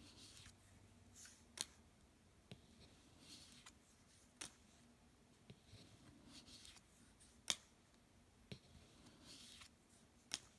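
Faint handling of Celtic Lenormand cards as they are slid off the top of the deck one by one: soft papery swishes of card sliding over card, with light sharp clicks of card edges, about one every second or two, the loudest about three quarters of the way through.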